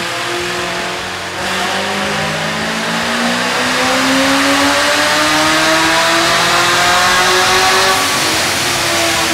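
Supercharged 1990 Ford Mustang V8 making a full-throttle pull on a chassis dyno, its tyres driving the rollers. The engine note climbs steadily in pitch for about six seconds, then drops near the end as the throttle is let off.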